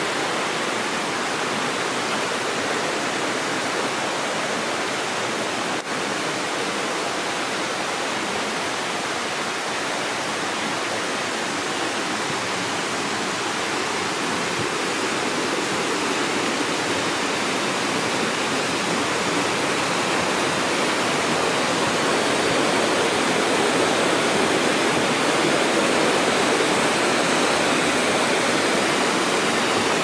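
Mountain stream rushing over rocks in a gorge: a steady water noise that grows gradually louder over the second half.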